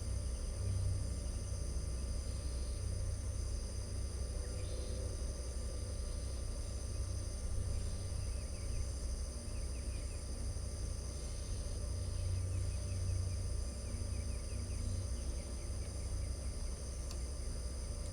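Crickets trilling steadily in several high, held tones, with a few faint bird chirps around the middle, over a steady low rumble.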